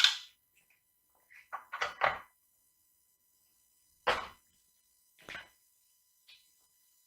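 Short knocks and clunks of a frame being set and shifted onto the tops of its posts: one at the start, a quick cluster of four around two seconds in, another loud one at about four seconds, then a couple of fainter ones.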